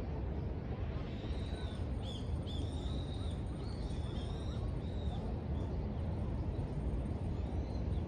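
City park ambience: a steady low background rumble, with a run of short, high bird calls starting about a second in and fading out about halfway through.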